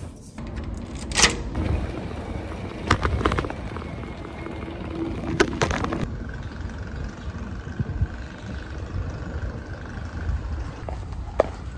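Outdoor street ambience on a handheld phone microphone while walking: a steady low rumble with a few sharp knocks and clicks, the loudest about a second in.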